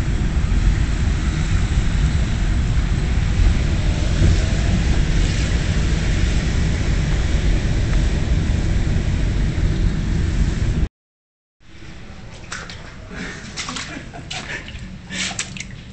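Steady loud rumble with water sloshing, heard from inside a vehicle rolling through shallow floodwater on a warehouse floor. About eleven seconds in it cuts off abruptly. After that come quieter scattered clicks and handling knocks.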